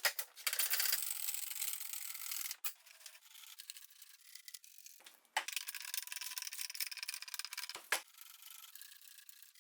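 Sandpaper rubbing back and forth on wood, a steady scratchy hiss that stops and restarts abruptly a few times.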